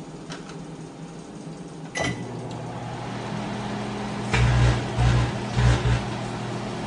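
Microwave oven running with a steady hum, with a sharp click about two seconds in. From about four seconds in come louder buzzing surges as a half-cut grape under a glass bowl sparks into plasma.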